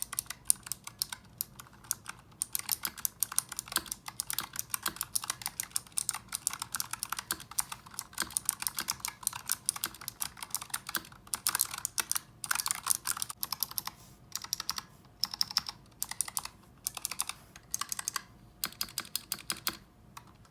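Razer Huntsman Mini 60% keyboard being typed on fast, a dense run of key clicks broken by a few short pauses.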